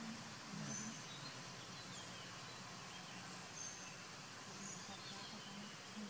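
Quiet outdoor ambience: a steady hiss with a few faint, short high bird chirps and a faint low murmur underneath.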